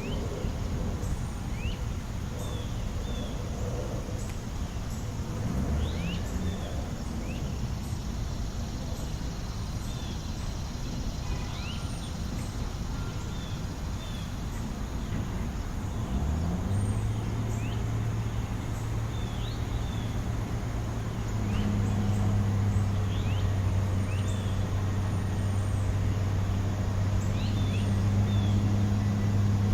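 Steady low rumble of traffic with small birds chirping in short, repeated calls. About halfway through, a low engine hum comes in, rising briefly in pitch and then holding steady, and grows louder a few seconds later.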